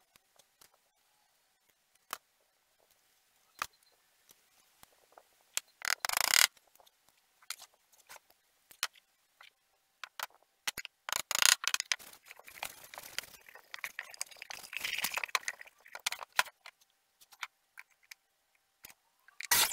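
Hand-tool and workpiece handling: scattered clicks and knocks, two short loud rasps about six and eleven seconds in, and a stretch of scratching. At the very end an electric miter saw's motor starts up.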